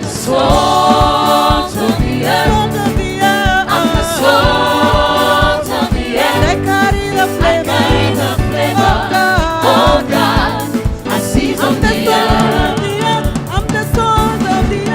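Gospel worship song: a choir of singers over a band with a steady drum beat.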